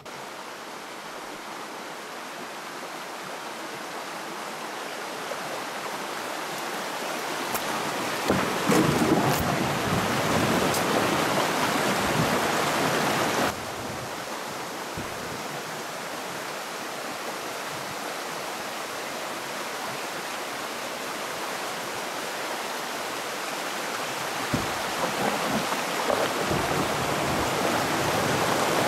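Shallow river rapids: a steady hiss of rushing water over rocks, heard from a canoe. It grows louder, drops off suddenly about halfway through, then builds again.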